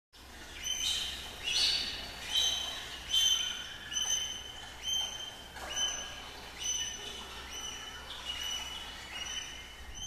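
Swallow-tailed gull calling: a series of about a dozen short, high calls, each falling in pitch, repeated roughly every second, growing fainter toward the end.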